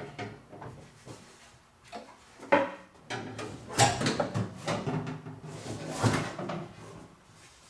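A metal gas tank scraping and knocking against the car's underside as it is worked up into place. There are several sharp clanks with a ringing tail, the loudest near the middle.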